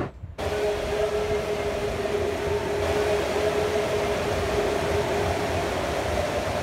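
Many swimmers splashing in an indoor pool hall: a steady wash of noise with a steady hum over it, starting suddenly just after the start.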